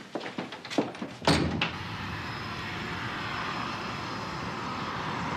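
A few short knocks, then from about a second in the steady noise of a car driving on the road, growing slightly louder.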